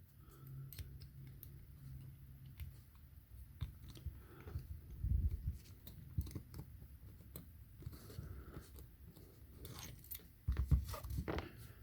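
Faint metallic clicks and scrapes as an Allen key works a screw in a brass padlock body, with a louder cluster of knocks about ten and a half seconds in.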